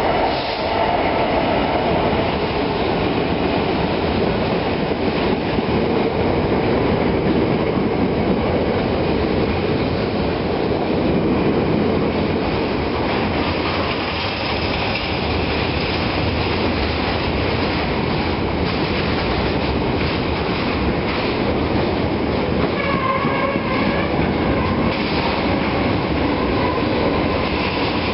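Container freight train passing at speed behind a GB Railfreight Class 66 diesel locomotive: the locomotive goes by at the start, then a long run of loaded container wagons follows, their wheels running steadily over the rails. A brief whining tone rises above the rumble about three-quarters of the way through.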